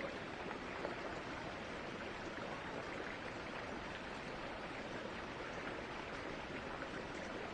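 Steady, even rushing of a small woodland creek running.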